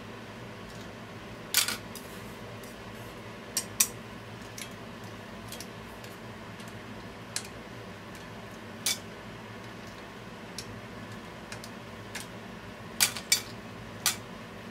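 Opened asari clams being lifted out of a simmering pan with chopsticks and dropped into a metal bowl: sharp clinks of shell and chopstick on metal at irregular intervals, over a steady low hum.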